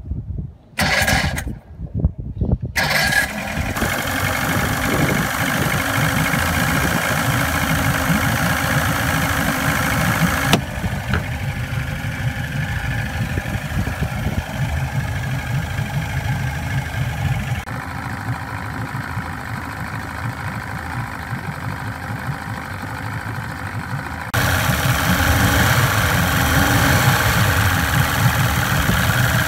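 Outboard motor with its cowling off, cranked on the electric starter in a few short bursts over the first couple of seconds, then catching and running steadily at idle. It gets louder for the last few seconds.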